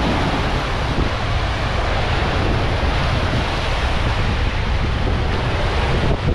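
Steady rush of wind and sea waves, with wind buffeting the microphone.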